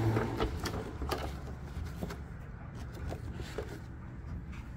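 Light handling noise: scattered soft clicks and rustling as papers and small parts are picked up and moved about.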